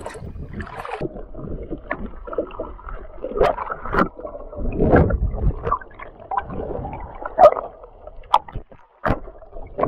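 Water sloshing and gurgling around an underwater camera, with irregular sharp knocks and clicks and a low rushing swell about five seconds in.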